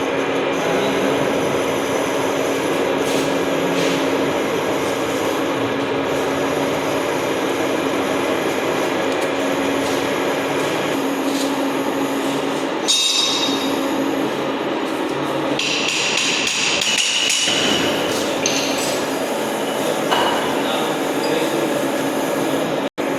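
Workshop lathe running with a steady motor hum and machining noise. Twice, about halfway and a few seconds later, a high-pitched squeal comes from the cutting tool on the metal workpiece, and there are a few light metallic knocks.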